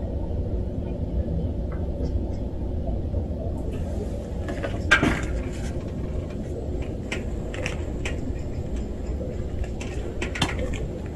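Steady low outdoor rumble with a few faint clicks, and one brief louder rustle about five seconds in.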